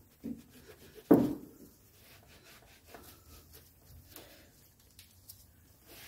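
Microfiber cloth rubbing and wiping a plastic fluid reservoir, cleaning it with acetone. A brief louder sound stands out about a second in.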